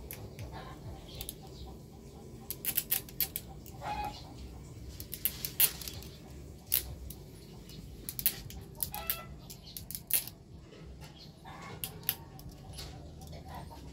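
Irregular sharp clicks and snaps of plastic as a scooter's fuel pump assembly and its filter are handled and fitted by hand, with a chicken clucking a few times.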